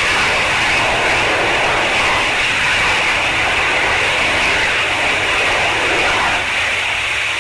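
Armadillo Aerospace Pixel lander's LOX/methane rocket engine firing steadily in hover, a loud even rushing noise. It drops slightly in level about six and a half seconds in.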